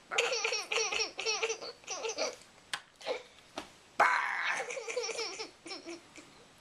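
A baby or small child laughing in quick, high-pitched bursts for about two seconds, then a second, louder laughing burst about four seconds in.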